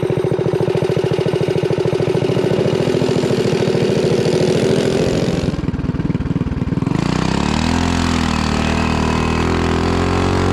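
Mini bike's small single-cylinder engine running steadily under the rider, easing off about halfway through, then revving up and down several times.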